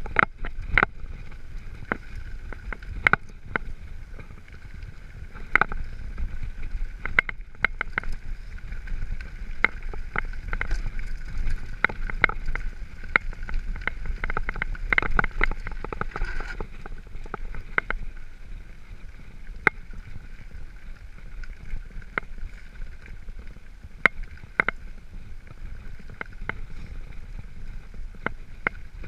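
Mountain bike rolling down a stony dirt track: a steady rumble of tyres and wind on the microphone, broken by frequent sharp clicks and rattles as the bike jolts over rocks, thickest about halfway through.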